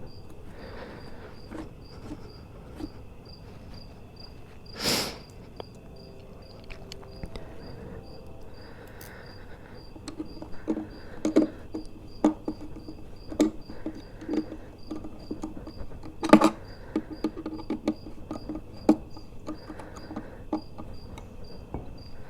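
Hand work on metal mounting hardware: scattered clicks and knocks, with a short loud burst about five seconds in and a run of knocks in the second half, the sharpest near the middle of that run. Under it a faint, high chirp repeats about twice a second throughout.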